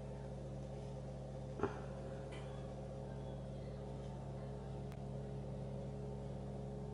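Steady mechanical hum made of several fixed low tones, with a single short knock about one and a half seconds in and a faint tick later.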